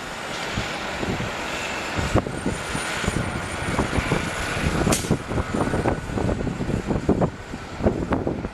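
Steady roar of jet aircraft engines with a faint high whine that drifts slightly in pitch, while gusts of wind thump on the microphone.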